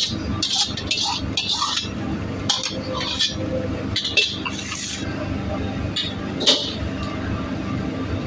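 A metal ladle clanging and scraping against a wok as food is tossed over the fire, in quick clusters at first and then scattered strikes, one loud clang about six and a half seconds in. Underneath runs the steady rush of the wok burner and kitchen extraction.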